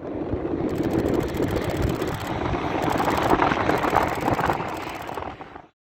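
Boeing 737-800's CFM56 jet engines roaring as the airliner passes, mixed with wind rumble on the microphone. Over it a DSLR shutter fires in rapid bursts, three or four runs of fast clicks with short pauses between them.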